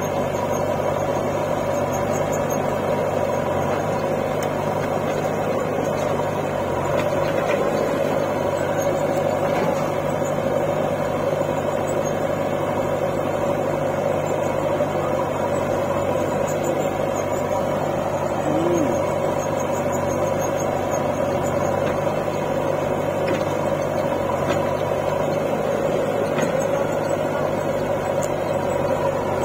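Diesel engines of a JCB 3DX backhoe loader and a John Deere 5045D tractor running steadily, with no revving or changes in pitch.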